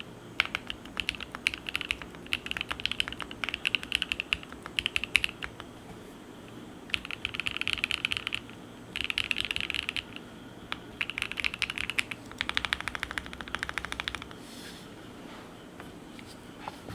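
Typing on a Monsgeek M1 mechanical keyboard with a PC plate, lubed and filmed Gateron North Pole V2 switches with their silicone dampeners removed, and Domikey Obsidian keycaps. Steady typing for the first five seconds or so, then four short bursts of very fast key presses, after which the typing stops about three seconds before the end.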